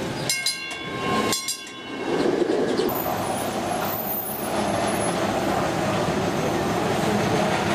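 Historic electric streetcar running along street rails, a steady rumble and rattle of steel wheels on track. Near the start come two sharp, bright metallic dings that ring on briefly.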